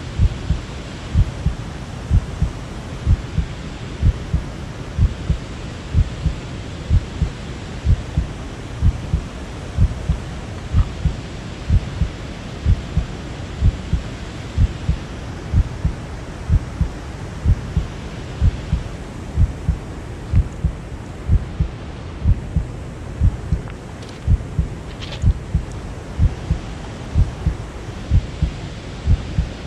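Very even low thumps, a double beat about once a second like a heartbeat, over a steady hiss. A brief higher-pitched sound cuts in once near the end.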